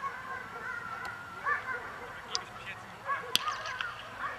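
A dog whining in short, high, rising-and-falling squeals, repeated throughout, while held back after protection work. A single sharp click comes about three and a half seconds in.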